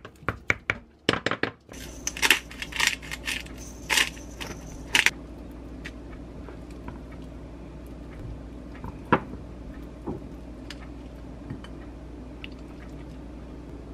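A wooden spatula mashing avocado and boiled egg in a glass mug, knocking against the glass in quick, regular strokes. After a second or two come a few seconds of louder clinks and scrapes of the spatula on the glass, then mostly low room tone with an occasional light tap.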